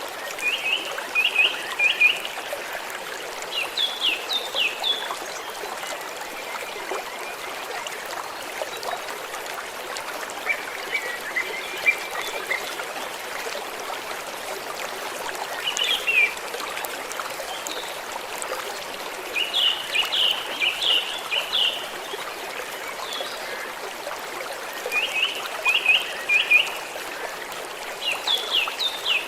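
Stream of gently flowing water, a steady trickling rush. A small bird sings short phrases of three or four quick high notes, repeated every few seconds.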